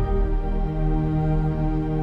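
Slow ambient music of sustained, held chords. The chord changes at the start, and a low held note comes in a little under a second in.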